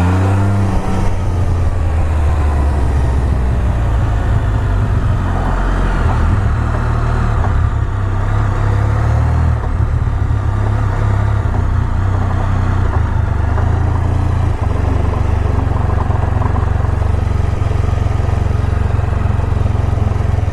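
Can-Am Spyder F3 Limited's Rotax 1330 three-cylinder engine running steadily on the move, with road and wind noise. The bike makes an odd noise on deceleration, which the rider suspects comes from a worn, rusting front drive pulley.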